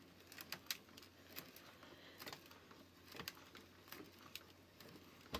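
Faint, irregular plastic clicks as the hand crank of a 1993 Mattel McDonald's Happy Meal Hamburger Snack Maker toy is turned, pushing the peanut-butter mixture down into the catcher.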